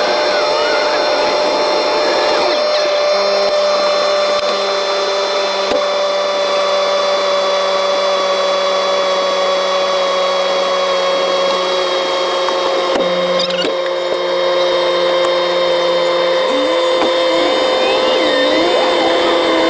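Tracked snow vehicle running at steady speed: a steady mechanical whine that drifts slowly lower in pitch, with a second, lower hum that joins a few seconds in and drops out about sixteen seconds in.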